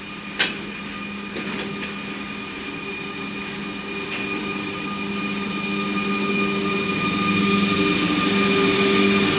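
WAG-12B twin-section electric freight locomotive passing at close range, with a steady hum and a high whine. It grows louder as it approaches and draws alongside. There is one sharp click about half a second in.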